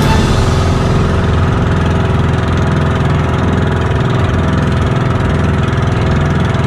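Engine of a motorized outrigger boat running steadily under way, an even, unbroken drone.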